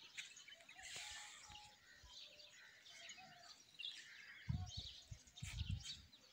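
Faint scattered chirps of small birds. Several low, dull thumps come between about four and six seconds in.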